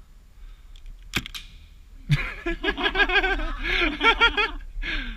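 Two sharp airsoft gun shots a little over a second in, then a loud raised voice, a shout or yell, lasting about two and a half seconds with quick clicks running under it.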